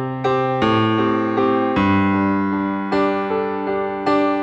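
Electric piano playing chords in a slow, gentle rhythm, with fresh chord attacks every half second or so and changes of harmony about a second in and again near two seconds.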